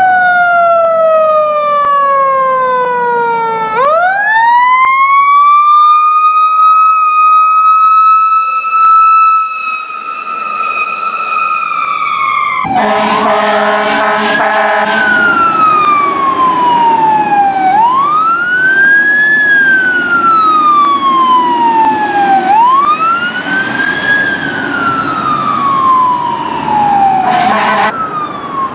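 Fire truck sirens. The first falls in pitch, then about four seconds in climbs fast to a high steady tone that holds for some eight seconds; after about thirteen seconds a second siren takes over, wailing up and down about once every four to five seconds over a low drone.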